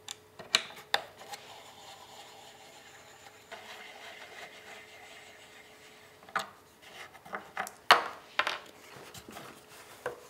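Wooden stretcher bars being handled: light knocks and clicks of wood on wood, with a stretch of soft rubbing in the middle. The loudest knock comes about eight seconds in, among a cluster of them.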